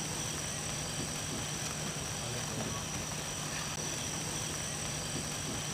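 Hand-held gold sparklers burning, a steady fizzing hiss with a few faint crackles over a constant low hum.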